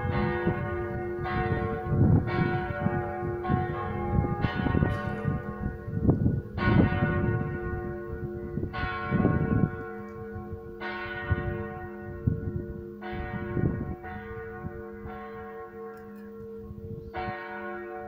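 Four of the five bells of a Catholic church tower ringing together in a partial peal, overlapping strokes each ringing on. The strokes come thick and fast at first, then thin out to about one every two seconds and grow fainter.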